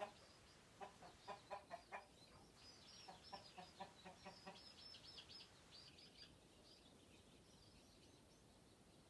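A hen giving a quick run of short alarm clucks, then a chorus of high, thin chick peeps with a few softer clucks mixed in, fading out after about six seconds: the hen's alarm at a person close by.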